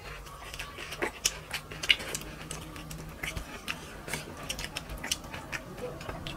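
Eating by hand: fingers squishing and mixing rice with fish curry on plates, with wet smacking and chewing, heard as a quick, irregular run of sharp clicks.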